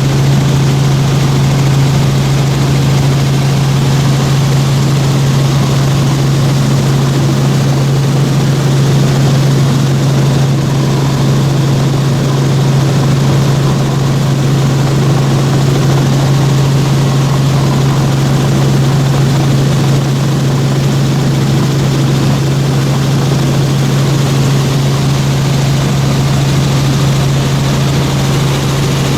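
Helicopter in steady flight, heard from inside the cabin: a loud, unchanging drone of rotors and engine with a strong low hum.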